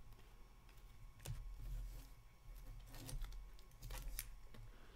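Trading cards being handled and set down on a tabletop: a few scattered light clicks and taps over a faint low hum.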